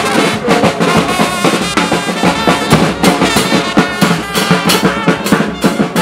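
A live brass band playing: brass horns holding notes over a bass drum and cymbals struck in a fast, steady beat.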